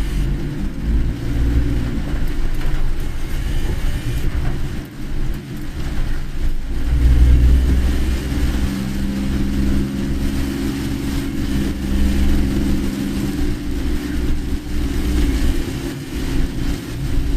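A car running, heard from inside the cabin: engine hum and road rumble, with the engine tone growing stronger and steadier for several seconds in the middle.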